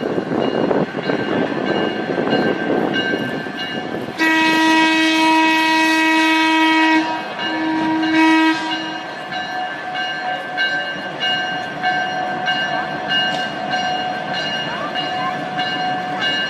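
Steam locomotive whistle sounding one long blast and then a short one over the noisy running of a steam train.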